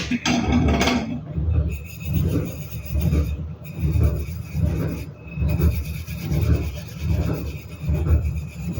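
Steel wool pad scrubbing a grimy stove, a rasping scour in steady back-and-forth strokes, about three every two seconds.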